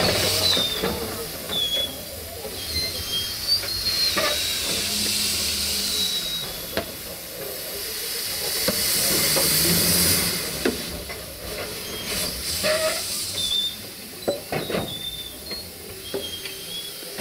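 Narrow-gauge steam locomotive 762.209 letting off steam: a hiss that swells and eases several times, with scattered knocks and a few short high squeaks.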